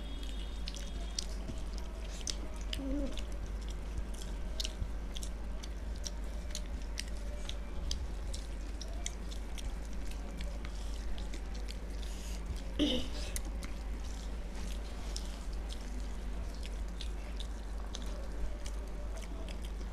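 Close-miked eating by hand: chewing and small wet mouth clicks as rice mixed with dal and fish is eaten, scattered all through. A steady low hum lies underneath, and there is one brief vocal sound about 13 seconds in.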